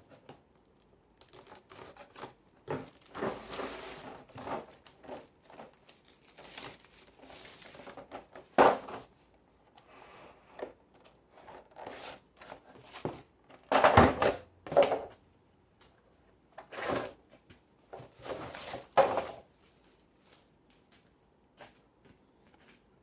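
Tool packaging being opened by hand: irregular tearing and crinkling, with several sharp knocks, the loudest about 14 seconds in.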